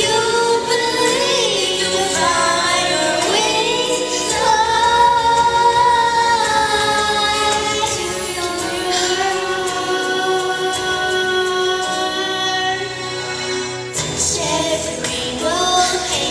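A young girl singing a slow song solo into a microphone, holding long notes.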